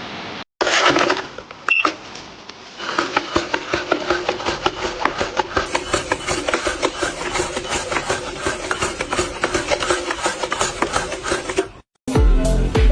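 A machine running with a fast, steady clatter of many clicks a second over a low hum, cutting off suddenly near the end.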